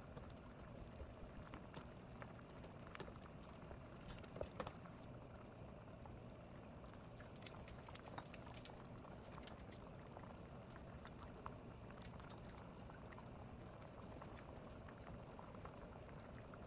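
Pots of vegetable soup simmering on a gas stove: faint, steady bubbling with small scattered pops.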